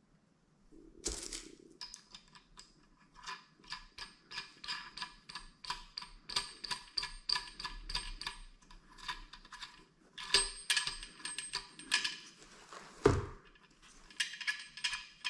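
Metal nut and washer being threaded onto a toilet tank bolt, a quick run of light metallic clicks, about three or four a second, with a ringing note. A single heavy knock comes about two-thirds of the way through.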